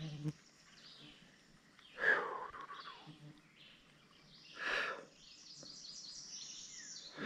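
Quiet riverbank ambience with birds calling, including a high trill in the last couple of seconds. A yellow fly buzzes briefly past the microphone at the start, and two short, louder sounds come about two and five seconds in.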